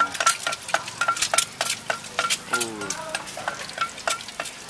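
A metal spatula stirring and tossing fried rice in a hot wok. It strikes the pan in a quick run of ringing clinks, several a second, over steady sizzling.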